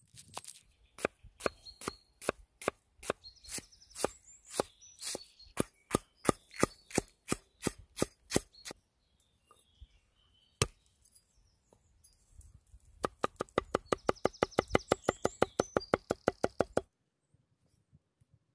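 Cleaver chopping vegetables on a wooden log-round board. For about nine seconds there are irregular, separate knife strikes, then a single knock near eleven seconds. After that comes about four seconds of rapid, evenly spaced chopping, which stops shortly before the end.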